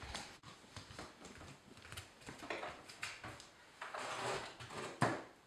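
Built-in oven door being opened and a plastic bucket handled inside the oven: soft rubbing and knocks, with a sharp clack about five seconds in.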